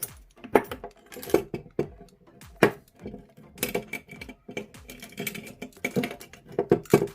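Metal padlocks and lock-picking tools being handled: an irregular run of sharp metallic clicks, clinks and knocks.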